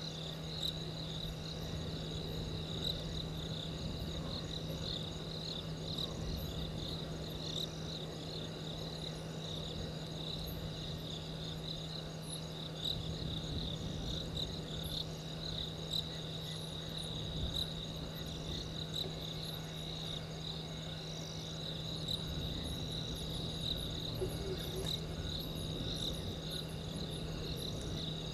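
Crickets calling in a steady, high, pulsing trill, with a constant low hum beneath.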